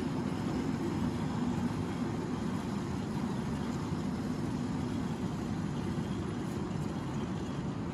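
Two 1/8-scale live steam Pacific locomotives running along the track, a steady low running sound with no distinct beat.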